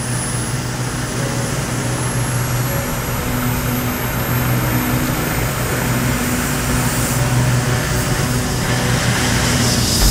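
Bell 429 twin-turbine helicopter running on the ground, its turbine whine rising slowly in pitch and growing louder as it powers up for takeoff, over a steady low rotor drone.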